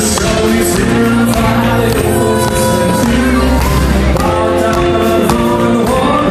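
Live band playing loud country music with a lead singer, heard from among the audience in a hall.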